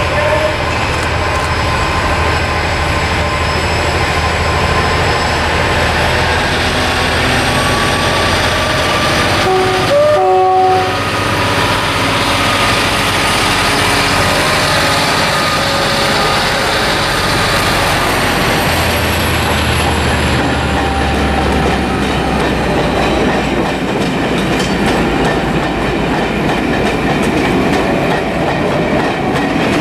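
Class 57/3 diesel locomotive's EMD V12 two-stroke engine working hard as it pulls a train away, with a short two-tone horn blast about ten seconds in. In the second half the coaches rumble and clatter past over the rail joints.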